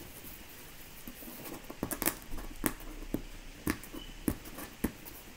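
Fingernails picking and scratching at packing tape on a cardboard box: a string of short, sharp scrapes and taps, starting about two seconds in.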